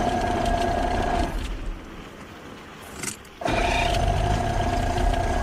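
A boat's outboard motor being started: two runs of a steady whine over a low rumble, each lasting a second or two, with a quieter gap between them.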